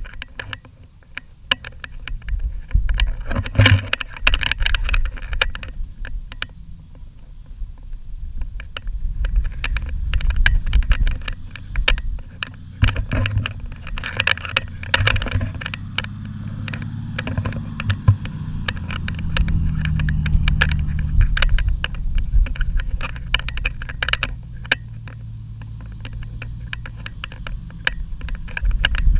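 Four-wheel-drive vehicle driving along a soft sand track. The engine rumbles, its note rising and falling and climbing for a while past the middle, with frequent sharp clicks and knocks throughout.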